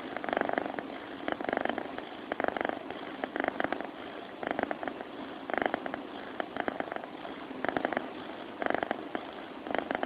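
A sleeping cat purring, a rough rattling purr that swells and eases in a steady rhythm of about one swell a second with its breathing.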